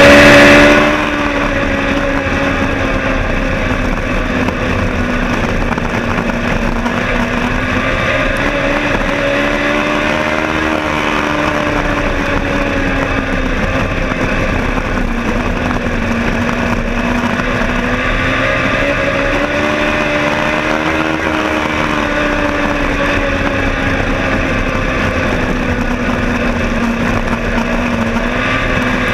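Legend race car's Yamaha 1200 cc four-cylinder motorcycle engine at racing speed, heard from inside the cockpit. Its note rises and falls in slow sweeps as the car laps the oval, and the sound drops in loudness about a second in.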